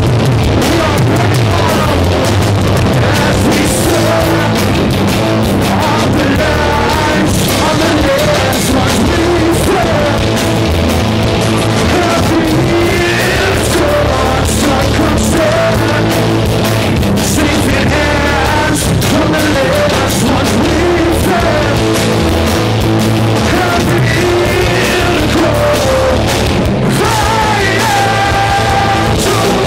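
A heavy rock band playing live: electric guitars, bass and drums, with a singer's voice over them.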